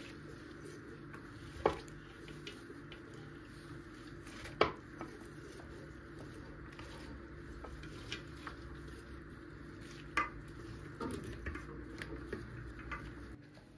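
Shredded red cabbage rustling as gloved hands pack it into a glass jar, with occasional sharp clinks of the glass jar, three louder ones about two, five and ten seconds in.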